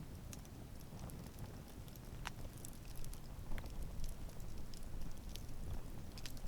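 Wood campfire burning, with a low steady rumble of flames and irregular sharp crackles and pops from the burning wood, a few louder snaps in the middle.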